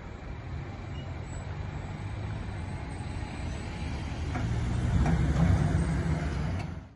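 Car driving across a railroad crossing, a low engine-and-tyre rumble that grows louder about four seconds in and is loudest near the end, where the sound cuts off abruptly.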